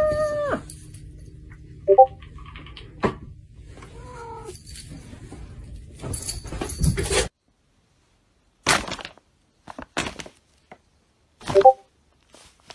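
A house cat meowing: one long meow at the start that drops in pitch as it ends, then a couple of short, chirping calls. The sound cuts off about seven seconds in; after that come a few sharp knocks and one brief meow near the end.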